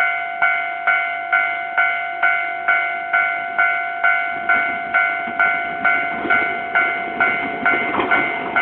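Japanese railway level-crossing alarm bell ringing steadily, about two strikes a second, while the crossing is closed for a train. An approaching train's rumble builds under the bell in the second half.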